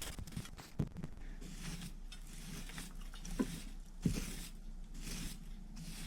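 Scattered light knocks and scraping, with sharper knocks about a second in and twice between three and a half and four seconds in.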